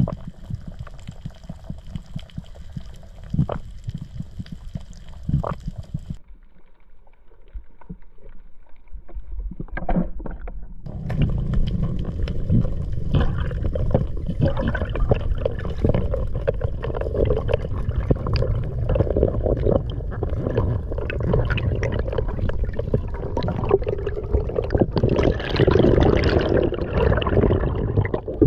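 Underwater sound picked up by a diver's camera: water sloshing and gurgling around the housing as a freediver swims. It is quieter for a few seconds near the start and grows louder and busier over the second half.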